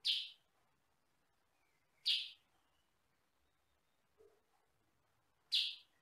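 Caged kutilang sutra, a yellow-and-black bulbul, giving three short, loud calls, the first at the start, the next about two seconds later and the last near the end.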